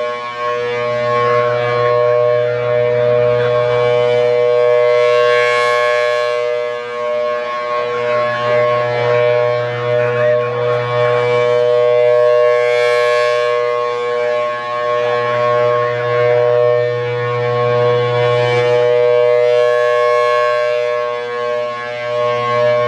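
Federal Signal Thunderbolt 1000AT rotating warning siren sounding its steady Alert tone, a chord of several held pitches. It swells and fades about every seven seconds as the rotating horn sweeps toward and away.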